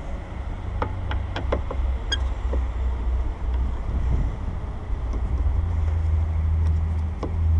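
Steady low rumble with a faint hum, and a scatter of short light clicks and taps, most of them in a quick run about a second in and one more near the end, from hand tools and parts being handled on a van door during mirror removal.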